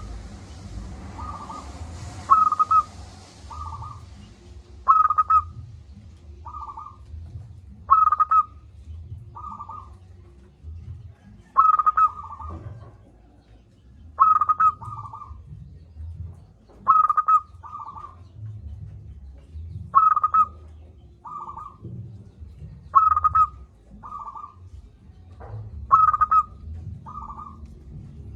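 Zebra dove (perkutut) cooing its song: a phrase repeated about every three seconds, each a loud ringing note followed by a few softer notes, over a low background rumble.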